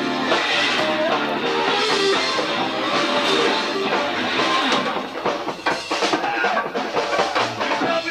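Live band playing an instrumental passage on guitar, bass guitar and drum kit. From about five seconds in, the music turns choppier, with sharp drum strikes.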